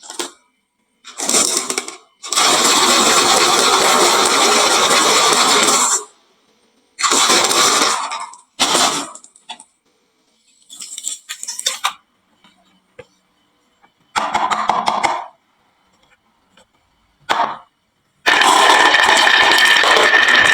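Marbles rolling and clattering down a wooden marble run slope and dropping into toy trucks, in several rattling bursts, the longest about four seconds, separated by dead silence. A last long rattling run starts near the end.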